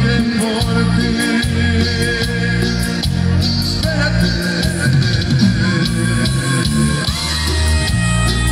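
Live tropical band music played through the stage PA: electric bass, congas and guitars in a steady rhythm, with singing. Long held higher notes come in about six seconds in.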